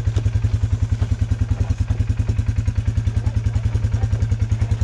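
ATV engine running at a steady low idle, an even throb of about a dozen pulses a second, as the four-wheeler creeps down a steep rock drop in four-wheel drive low with almost no throttle.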